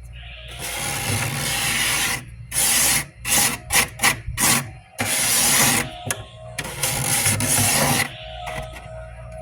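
Frost buildup being scraped off a humidifier: long rasping scrapes with a run of quick short strokes in the middle, over a steady low hum.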